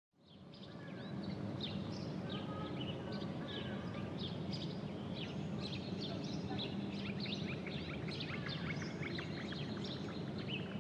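Many small birds chirping in quick, overlapping calls over a low, steady outdoor rumble. The sound fades in during the first second.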